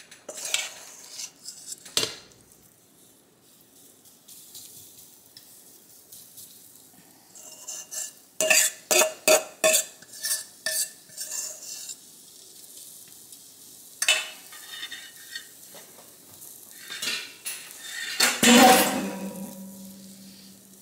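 Kitchen utensils clinking, tapping and scraping against a nonstick skillet as a raw salmon patty is laid in to fry, with a quick run of taps about halfway through and a louder clatter near the end. A faint sizzle of frying sits under it.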